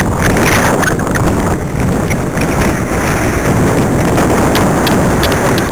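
Wind buffeting a small camera's microphone, a loud, uneven rumble with no voices.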